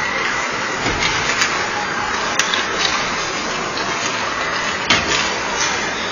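Steady noisy din of an ice hockey practice, with several sharp clacks of sticks and pucks, the loudest just before five seconds in.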